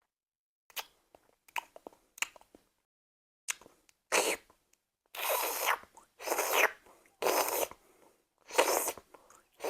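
Beatboxer's mouth-made sound effects: a few soft clicks and pops, then a series of loud, breathy, hissing bursts about one a second.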